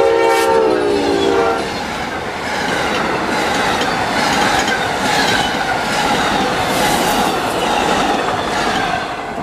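Amtrak passenger train passing at speed. The locomotive's horn sounds, drops in pitch as the locomotive goes by, and stops about a second and a half in. Then comes the steady rushing clatter of the passenger cars' wheels on the rails.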